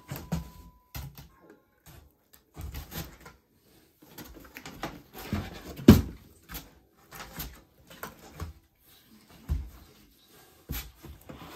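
Unpacking a cardboard box: wooden hangers and a slatted wooden rack clacking and knocking, with cardboard and a woven basket rustling. The loudest thump comes about six seconds in, as the wooden rack is lifted out.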